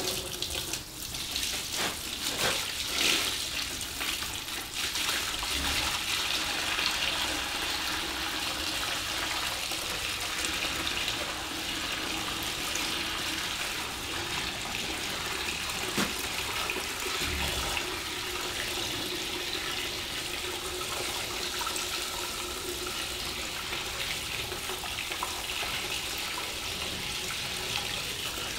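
Fermented plum wash siphoned through a garden hose and running into a plastic bucket: a steady pouring splash, uneven for the first few seconds as the flow starts, then even.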